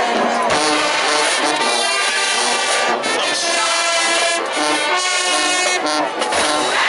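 High school marching band playing its field show, led by the brass, in loud held chords that change several times.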